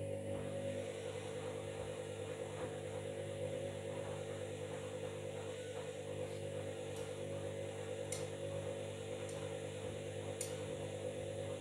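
Washing machine running with a steady motor hum that cuts off abruptly near the end, with a few faint ticks over it.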